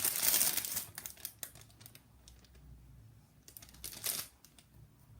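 Plastic ice-lolly wrapper being pulled open: a loud crinkle in the first second, then faint rustling and small clicks, with another short crinkle about four seconds in.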